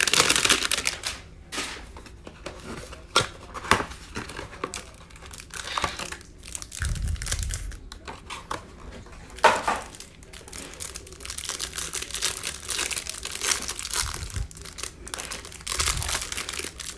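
A hanger box of Mosaic football trading cards being torn open: irregular tearing and crinkling of the packaging, with sharp rips near the start and about nine seconds in, and denser crinkling near the end.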